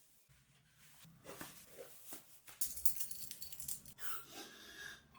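Irregular rustling and light clicks of objects being handled, busiest around the middle.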